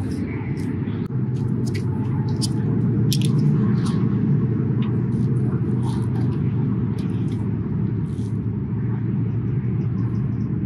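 Wind buffeting the microphone: a steady low rumble, with scattered light clicks and rustles on top.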